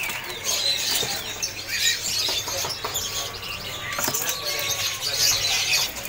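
Many caged songbirds chirping and calling over one another in a dense, continuous chorus, with scattered short clicks.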